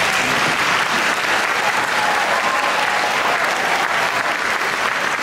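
Audience applauding steadily, dense clapping that holds at an even level throughout.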